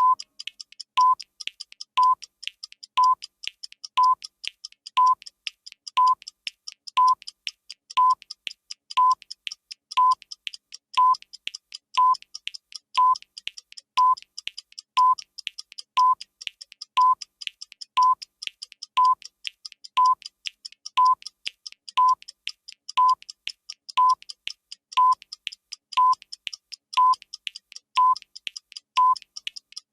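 Countdown timer sound effect: a short electronic beep once every second over a fast, steady clock-like ticking.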